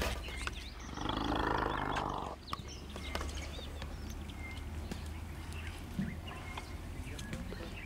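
An elephant calf calls once: a bellow of about a second and a half, starting about a second in. A steady low hum runs underneath.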